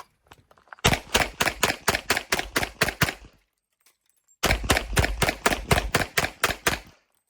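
Pistol fire on a shooting range, in two fast strings of shots at about six a second. The first string starts about a second in and runs for about two and a half seconds. The second follows after a pause of about a second and runs for about two and a half seconds.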